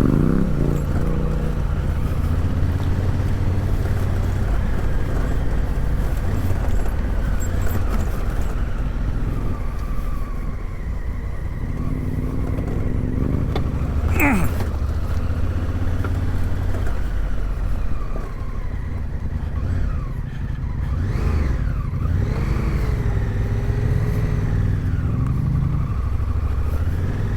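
Parallel-twin adventure motorcycle engine running off-road, its pitch rising and falling as the throttle is opened and closed, with a short sharp knock about halfway through.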